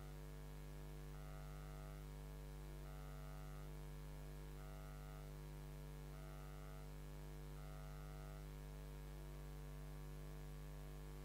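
Steady electrical mains hum with its overtones in the recording, with a faint higher buzz pulsing in and out about every second and a half.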